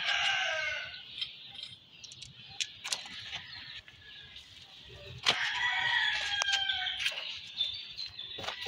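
A rooster crowing: the end of one crow fades out about a second in, and a second long crow follows from about five seconds in. A few sharp knocks are heard between and during the crows.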